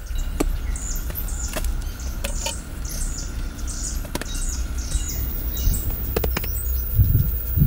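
A bird calling over and over with short, high, falling chirps, about two a second, over a steady low rumble. A few clicks and knocks sound near the end, and two dull thuds come close together at the very end.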